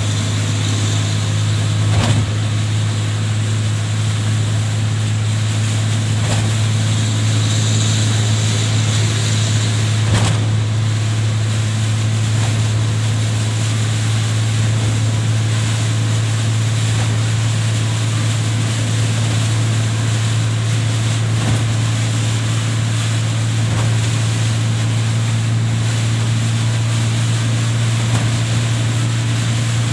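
Heavy rain and wind in a rainstorm, a dense steady hiss, over a loud, even low hum, with two brief knocks, about two seconds in and about ten seconds in.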